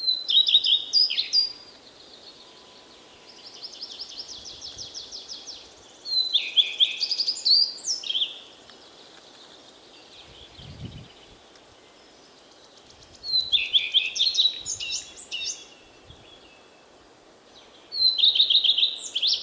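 Common starling singing: four loud bouts of rapid, high-pitched repeated notes and chatter separated by pauses, with a softer fast trill between the first two bouts.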